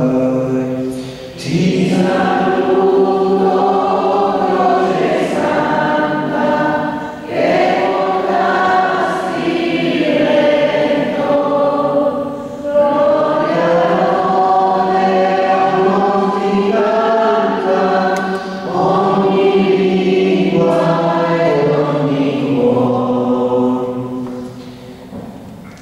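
A congregation singing a hymn together, without words spoken, in phrases a few seconds long with short breaks between them, dying away near the end.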